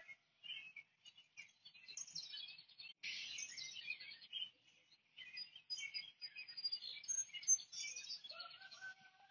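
Small birds chirping and twittering in a busy, high-pitched chorus, with a thin high whistle held for about two seconds midway.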